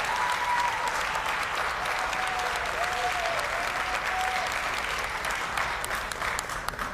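Audience applauding steadily, with a few brief pitched tones over it; the clapping thins out near the end.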